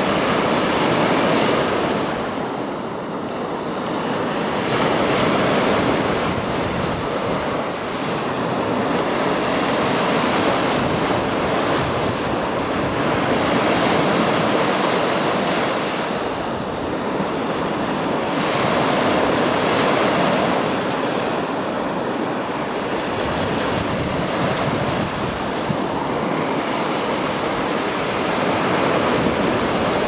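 Small waves on a large freshwater lake breaking and washing up onto a sandy shore. The surf wash is continuous and swells and eases every few seconds as each wave comes in.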